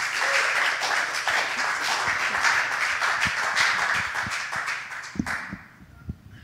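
Congregation applauding, a dense patter of clapping that dies away about five seconds in. A few low knocks follow near the end.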